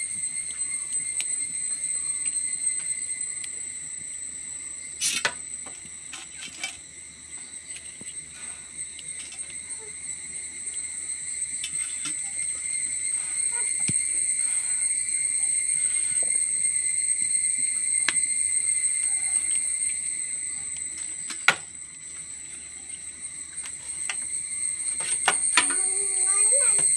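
Steady high-pitched insect chirring, with a few sharp clicks and knocks, the loudest about 21 seconds in.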